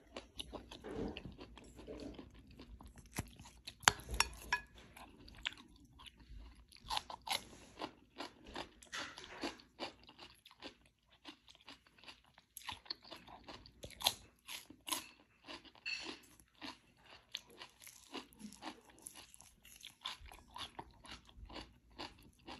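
Someone eating close to the microphone: repeated crisp crunches and wet chewing, as of raw cucumber slices and rice with sardines being bitten and chewed.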